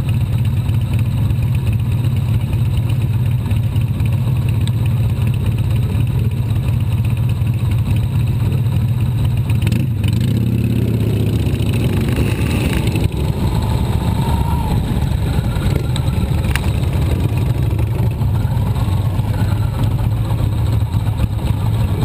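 Motorcycle engine running at low road speed, heard from a camera mounted on the bike, with a steady low note; the engine note shifts around the middle as the bike slows and turns.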